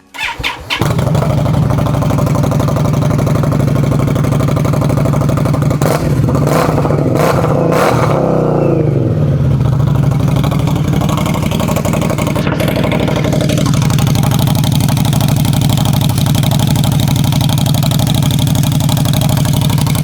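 2021 Indian Scout V-twin running through a GP aftermarket exhaust with DB killers fitted: the engine catches within the first second and settles into a loud, steady idle. Around six to eight seconds in it is revved up, then it falls back to idle.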